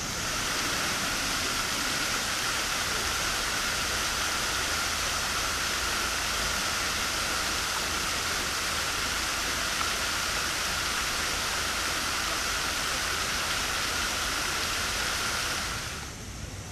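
Circular fountain's arching water jets splashing down into its basin: a steady rushing hiss that starts suddenly and drops away near the end.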